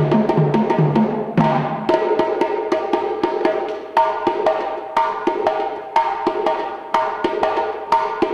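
West African drum ensemble playing a fast dununba rhythm: djembe slaps and tones over a sharp clicking beat. Deep pitched strokes of the dunun bass drums sound for about the first two seconds, then drop out.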